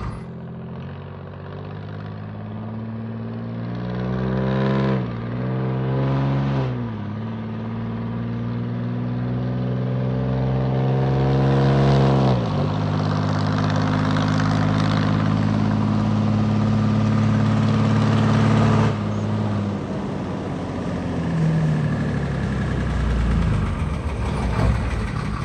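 Big V6 Toroflow DH478 diesel of a 1972 GMC Napco K5500 pulling hard through the gears of its six-speed Allison automatic. The engine note climbs and drops sharply at each upshift, about five, seven and twelve seconds in, then holds steady and falls back at about nineteen seconds as the truck comes off the throttle.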